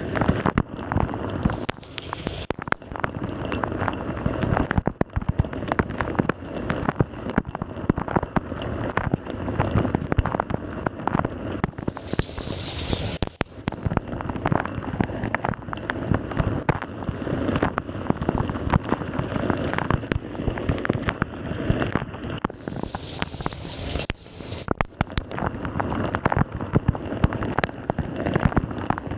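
Water spraying and splashing inside a running Samsung dishwasher, a dense rain-like patter of drops. A brighter hiss swells up about every ten seconds, three times in all.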